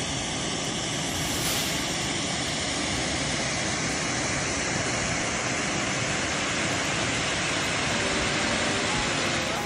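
Water rushing over a stepped concrete spillway: a steady, even wash of noise. Faint music comes in near the end.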